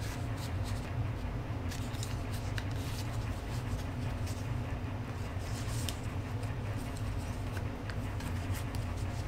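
Leather shift boot being worked onto its plastic trim frame by hand: scattered rustling and small plastic clicks, over a steady low hum.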